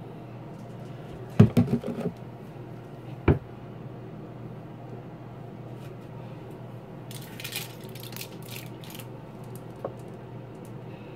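Plastic bottles and a bottle cap being handled: a quick clatter of knocks about a second and a half in, a single sharp click about three seconds in, then brief scratchy rustling a few seconds later, over a low steady hum.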